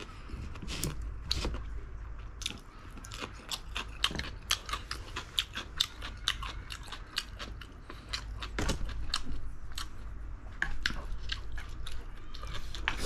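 A person chewing spicy braised chicken, with frequent wet mouth smacks and clicks a few times a second, over a faint low hum.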